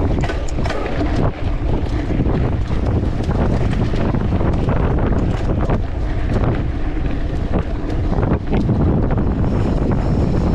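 Wind buffeting the microphone of a small camera on a mountain bike being ridden over a rough forest trail. Frequent short knocks and rattles from the bike and camera mount run through it.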